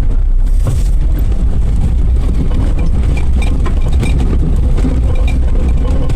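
Suzuki Jimny 4x4's engine running steadily, a deep low rumble, with faint light ticks repeating in the background.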